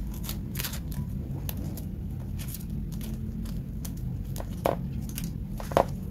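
Rubber-coated work gloves rustling and rubbing against a coiled soldering-iron power cord as it is handled and uncoiled, with scattered soft clicks and a firmer tap near the end. A steady low hum runs underneath.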